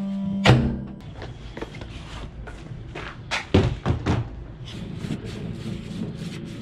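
A microwave oven's hum stops and its door opens with a loud clunk about half a second in. A few more knocks and thuds follow around three and a half to four seconds in.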